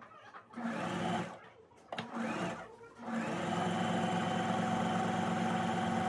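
Brother electric sewing machine stitching: two short bursts, then a steady longer run from about three seconds in, the motor speeding up at each start and slowing at each stop. A single click sounds between the bursts.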